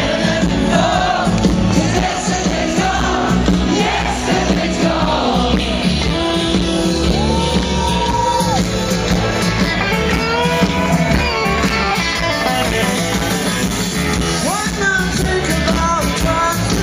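Live rock band playing with lead singing, amplified over a festival PA and heard from within the crowd, with crowd shouts mixed in.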